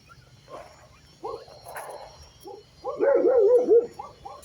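Street dogs making short calls that bend up and down in pitch; a quick run of them about three seconds in is the loudest.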